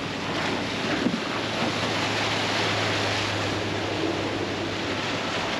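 Rushing, splashing water and wind on the microphone as a Raider Marine 470 LT RIB with a Parsun F60 outboard runs past at speed and its wake breaks. A steady low motor drone sits under the hiss, and the hiss is loudest about halfway through.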